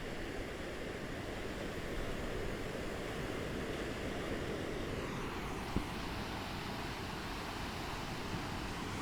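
Gentle ocean waves lapping against the shore in a steady wash of surf that swells for the first few seconds and then eases about halfway through.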